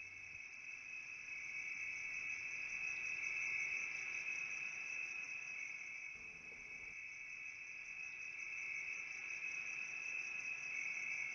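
Crickets trilling steadily, a continuous high chirring that grows louder over the first few seconds, dips slightly about six seconds in, and rises again.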